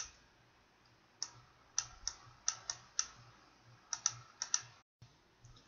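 Computer mouse clicking: about a dozen sharp, short clicks at an irregular pace, some in quick pairs.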